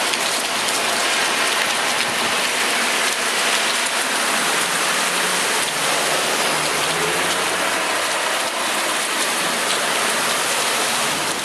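Heavy rain pouring down, a dense steady hiss that holds at one level throughout.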